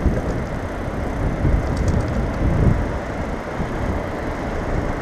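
Steady low rumble of wind and road noise on a handlebar-mounted camera's microphone as a bicycle rides along a wet city street.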